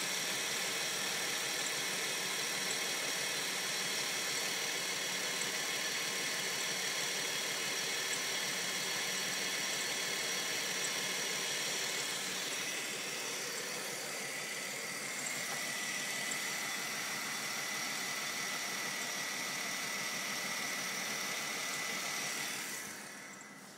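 A 2001 Dodge Intrepid's 2.7-litre V6 idling steadily under the open hood, with a constant high whine over the engine noise. The sound fades away near the end.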